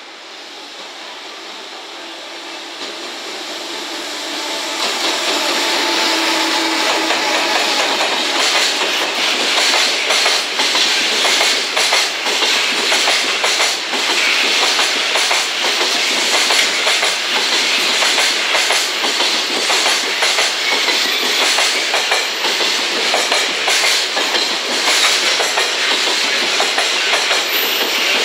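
JR Freight container train hauled by an EF210 electric locomotive, passing close by. It grows louder over the first five seconds as the locomotive draws near, then holds steady with the clickety-clack of wheels over rail joints as the long line of container wagons goes by.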